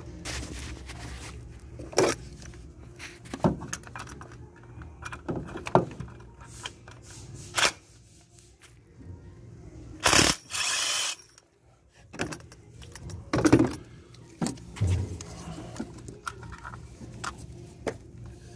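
Hand tools working in a car's engine bay: scattered metal clicks, knocks and clinks, with a loud, second-long burst of rattling noise about ten seconds in.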